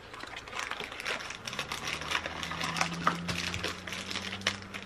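Small cardboard blind box being opened by hand and the plastic bag inside handled: a rapid run of small crackles, rustles and clicks. A low steady hum comes in about a second and a half in.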